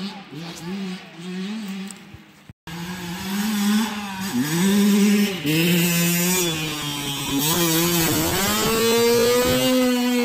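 Dirt bike engine revving up and dropping back again and again as it is ridden around a motocross track, with a split-second dropout to silence about two and a half seconds in. Near the end the engine holds one steady high note as the bike flies off a jump.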